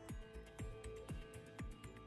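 Quiet electronic background music with a steady beat of low, falling kick-drum thumps about twice a second under sustained synth tones.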